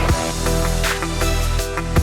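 Background music with a steady beat, a deep bass and held synth notes.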